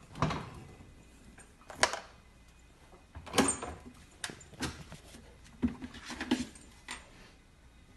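A husky puppy clambering into an open refrigerator, knocking against its door and plastic shelves. It gives a scattered series of short knocks and clatters, about eight in all.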